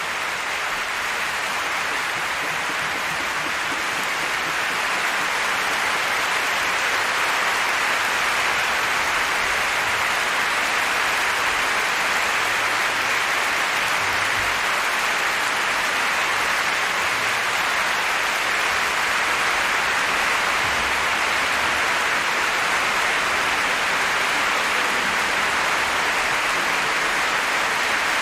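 Large audience applauding, the clapping swelling over the first few seconds and then holding steady.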